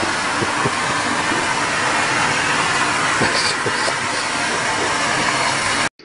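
Vacuum cleaner running with a steady loud whoosh of suction, with a few light knocks. It cuts off suddenly near the end.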